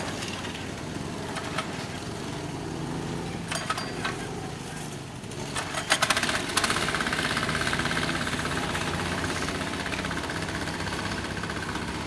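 Go-kart engines running on a track, a steady buzzing drone. About halfway through, one kart's engine comes in louder and then slowly fades, just after a few sharp clicks.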